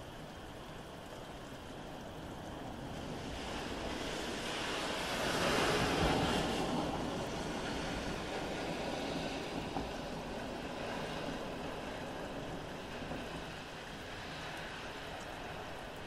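Steady rain with a faint, distant frog chorus. A car passes on the wet road: its tyre hiss swells to a peak about six seconds in, then fades away over several seconds.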